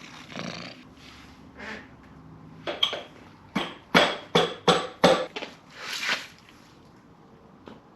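A quick run of sharp knocks, about seven in two and a half seconds, followed by a short scraping rustle about six seconds in.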